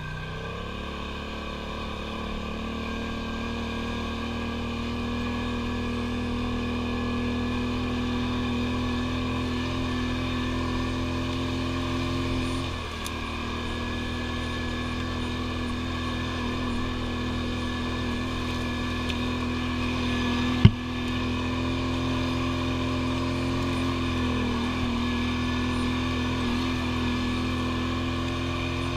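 ATV engine pulling away with a rising pitch, then running at a steady cruising speed over a dirt trail, easing off briefly about halfway through. A single sharp knock about two-thirds of the way through is the loudest moment.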